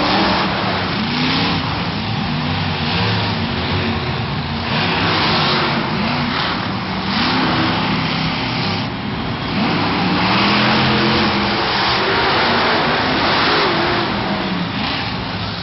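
Monster truck engines revving and running in a stadium arena, their pitch rising and falling again and again over a steady loud wash of noise.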